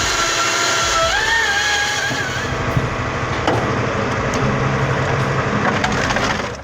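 Firewood splitting machine at work: wood cracking and splintering over a machine whine that steps up in pitch about a second in, with a few sharp knocks later on.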